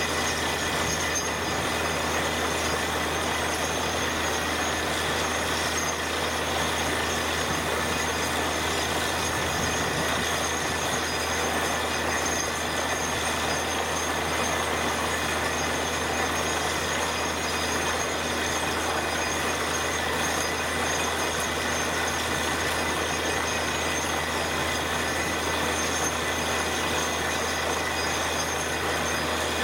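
Truck-mounted borewell drilling rig running steadily under air-compressor power while drilling, with compressed air blowing wet cuttings out of the hole; a low engine hum under an even rushing noise, with no change throughout.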